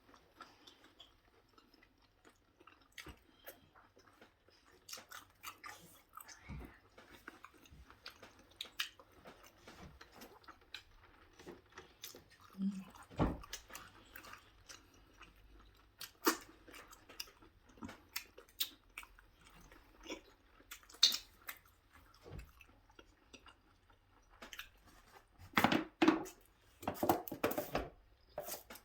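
A person chewing and biting into langos fried flatbread topped with cheese, with irregular wet mouth noises and crunches, close to the microphone; a denser run of louder crunches comes near the end.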